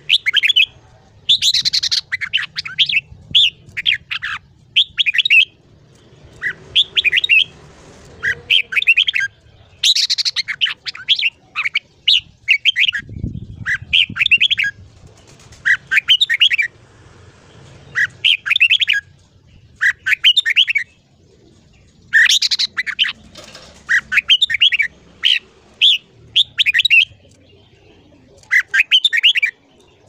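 Red-whiskered bulbul singing: short, bright, warbling phrases repeated about once a second, with brief pauses between bouts.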